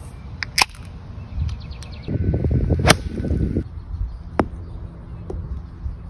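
A beer can is cracked open with a sharp snap about half a second in, followed by a brief fizz. Several more sharp clicks follow, the loudest about three seconds in, then a fainter tap about four and a half seconds in.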